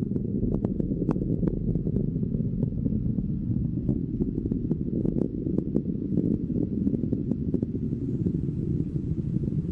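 Rocket first-stage engines burning in flight: a deep, steady rumble with irregular sharp crackles scattered through it.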